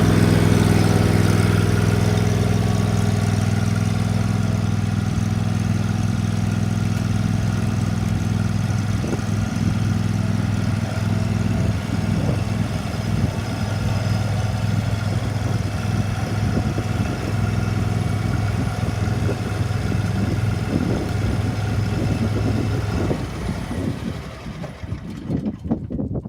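Engine of a Cub Cadet 36-inch hydrostatic walk-behind mower running steadily, with the mower in neutral and its parking brake off. Its steady note fades out about three seconds before the end.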